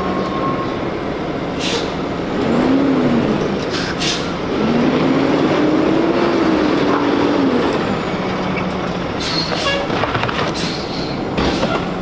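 Diesel refuse truck engine running as the truck drives up and turns, its pitch rising and falling with the throttle over a steady low hum. A few brief sharp sounds come near the end.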